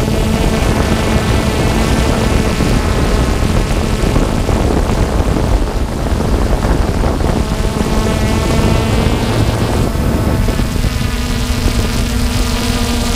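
Multirotor drone's motors and propellers whining steadily, picked up close on the drone's own microphone, with wind rumble underneath. The pitch wavers in the middle and settles again near the end.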